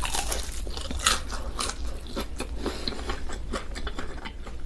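Close-up biting and chewing of a crispy-skinned chicken leg: a dense, irregular run of sharp crunches and crackles from the crisp skin.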